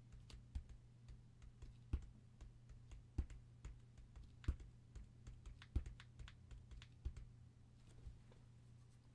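Light, irregular tapping and clicking close to the microphone, with a handful of louder knocks about every second and a quarter, over a low steady hum.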